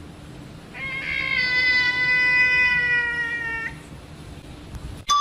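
A cat giving one long, drawn-out meow, about three seconds long, starting about a second in and sagging slightly in pitch at the end.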